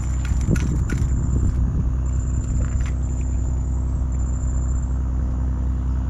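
A small engine running steadily, a low even drone, with a high-pitched insect buzz coming and going above it.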